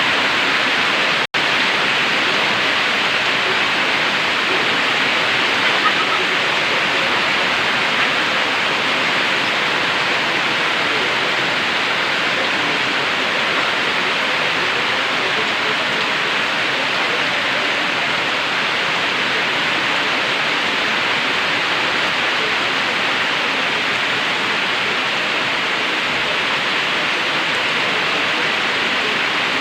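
Heavy, steady downpour of tropical-storm rain, an even hiss with no let-up. The sound cuts out for an instant about a second in.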